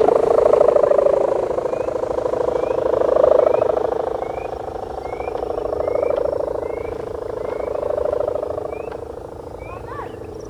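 A kite's bow hummer (sendaran) strung with gift-wrap ribbon, humming in the wind as the kite climbs. It makes a loud buzzing drone with a rapid flutter, the 'boiling water' hum, which swells and fades every two or three seconds and slowly grows fainter.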